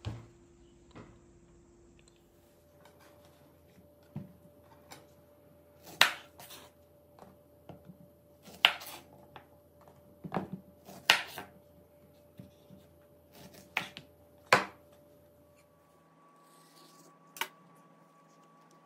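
Hands handling bananas on a wooden cutting board: a series of sharp clicks and knocks, about a dozen, bunched in the middle stretch, over a faint steady hum.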